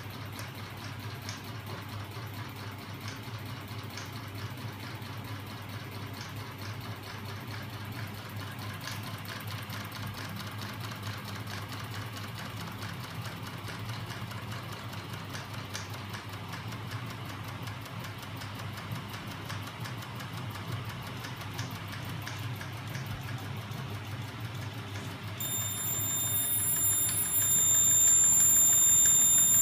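Homemade magnet-driven crank-and-flywheel engine rig running, its small DC electric motors humming with a fast, regular mechanical ticking from the linkages. Near the end a continuous high-pitched electronic beep starts and is louder than the machine.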